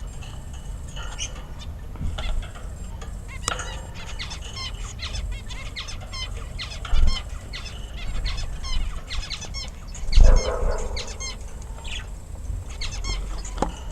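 Birds chirping: many short, high, quick chirps over a low steady rumble. Two louder low thumps come about seven and ten seconds in.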